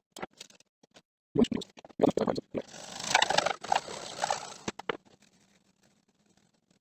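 PVC pipe and plastic fittings being worked by hand: a few sharp knocks, then about two seconds of scraping and rasping near the middle.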